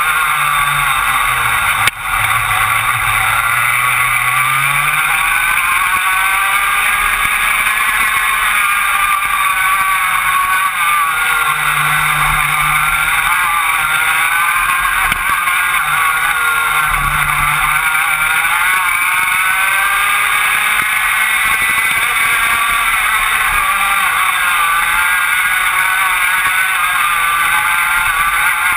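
Rotax Max 125cc two-stroke kart engine heard onboard at race pace, its pitch rising on the straights and falling back as it comes off the throttle for corners. A brief knock about two seconds in.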